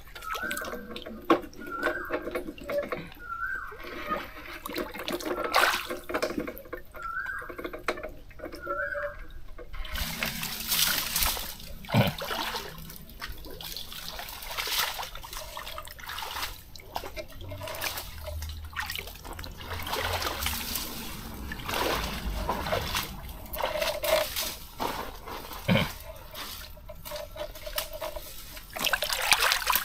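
Water splashing and trickling, with a dense run of irregular splashes from about a third of the way in.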